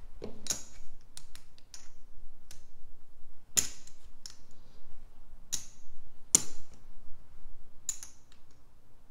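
Casino chips clicking against each other as bets are set down on the craps layout: a scattering of sharp, irregular clicks.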